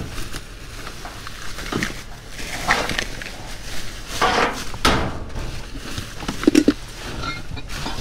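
Plastic trash bags and cardboard rustling and crinkling as hands dig through a dumpster, in irregular bursts of handling noise.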